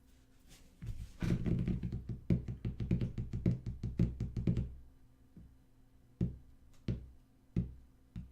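Rapid typing on a computer keyboard, a fast run of key taps for about four seconds, then a few single key presses spaced under a second apart.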